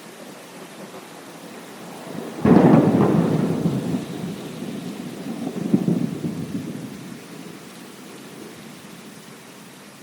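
Thunder over steady rain. A sudden loud thunderclap comes about two and a half seconds in and rumbles on, swells again near six seconds, then fades back to the rain.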